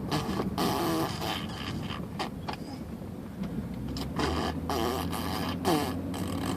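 A baby blowing raspberries, making spluttering fart noises with her lips in several short bursts, two near the start and a few more about four to six seconds in.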